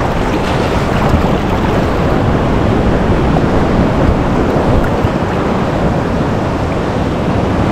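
Ocean surf washing and breaking, loud and steady, with wind buffeting the microphone.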